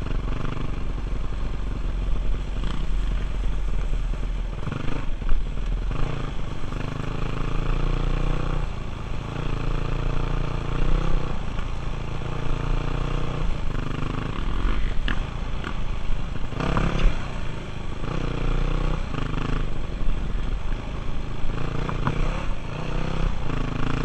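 Dirt bike engine revving up and easing off again and again while riding a rough trail, heard close up from on the bike, with a few sharp knocks and clatter from the bike over bumps.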